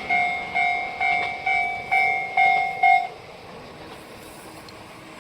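Japanese railway level-crossing alarm bell ringing: a repeated electronic ding on two pitches, about two strikes a second, that stops about three seconds in.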